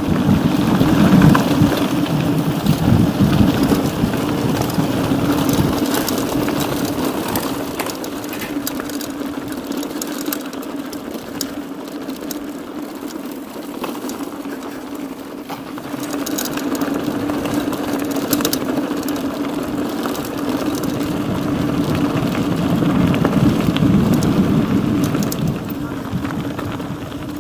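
Mountain bike being ridden over a rough trail: continuous tyre rumble and wind noise on the action camera's microphone, with many sharp rattles and clicks from the bike, louder near the start and again past the middle.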